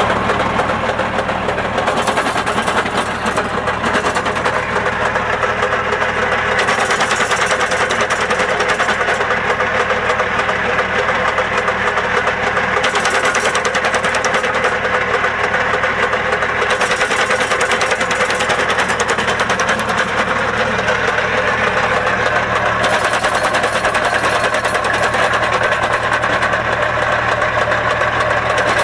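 Tractor engine running steadily, driving a home-made branch cutter through its power take-off shaft, with a fast, even ticking from the machine. Stretches of louder, hissing cutting come and go as branches are fed in and chopped into short pieces.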